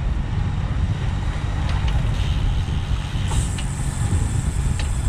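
Steady low rumble of wind and road noise from a road bike moving at race speed, with a few light clicks. A thin high hiss joins about three seconds in.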